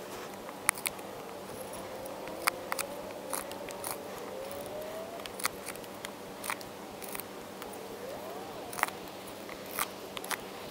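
Condor Bushcraft Basic 4-inch knife carving notches into a peeled stick: sharp, irregular snicks and clicks as the blade bites into the wood and chips break off, about one or two a second.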